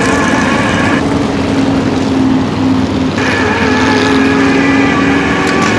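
Groundpounder stock car's engine running at a steady note as the car circles the track, heard close up from a bumper-mounted camera. Its higher tones drop away for about two seconds from a second in, then return.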